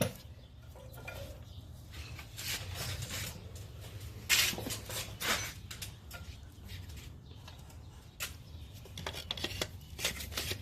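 Metal parts clinking, knocking and scraping as the electric parking brake actuator is worked and slid back into place on a rear brake caliper, with two louder knocks around the middle and a flurry of small clicks near the end. A faint steady low hum runs underneath.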